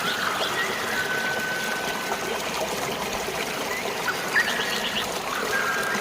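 Steady rush of flowing water with birds calling over it: a long held whistled note about a second in, a quick burst of chirps a little past four seconds, and another held whistle near the end.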